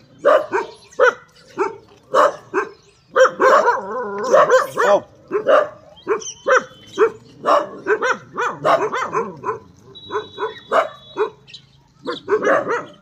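Stray dogs barking over and over in short barks, one or two a second, with a thicker run of overlapping barks a few seconds in.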